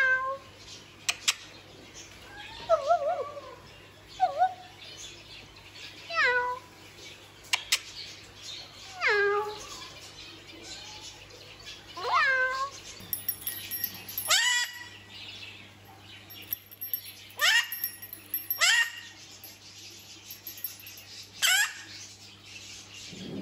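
Hahn's macaw (red-shouldered mini macaw) calling: about nine short, loud calls, each sliding sharply down in pitch, spaced every two to three seconds, with a few lower, wavering calls a few seconds in.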